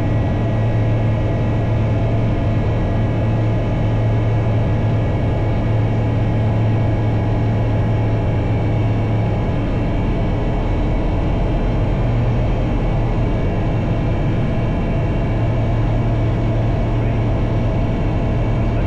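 Light single-engine plane's piston engine and propeller running steadily at high power while climbing out after takeoff, heard from inside the cockpit as a constant low drone.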